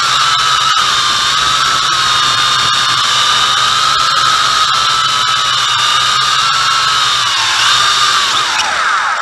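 MJX X101 quadcopter's motors and propellers whining steadily at a high pitch, heard up close from a camera mounted on the drone. Near the end the pitch falls as the motors slow for landing.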